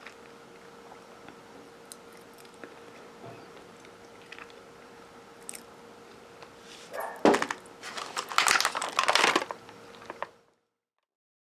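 Chewing and crunching of a crisp S'mores Chips Ahoy! cookie close to the microphone, faint at first, then a run of loud crisp crunches from about seven to nine and a half seconds in. A faint steady hum lies underneath, and all sound stops abruptly about ten and a half seconds in.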